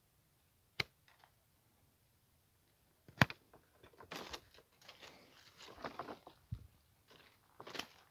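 Hand pruning shears snipping quince branches: a sharp snip a little under a second in and a louder one about three seconds in. After the second snip come several seconds of rustling twigs and leaves as the cut branches are handled, with another short snip near the end.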